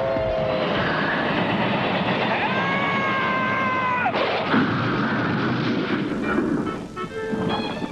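Cartoon sound effects: a continuous engine-like rushing roar with whistling tones over it. Partway through a whistle slides down, and after about six seconds the roar thins out.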